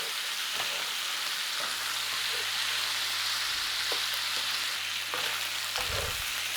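Cubed chicken breast frying in butter and oil in a pan, a steady sizzle. A few faint clicks sound, and a soft low thump comes near the end.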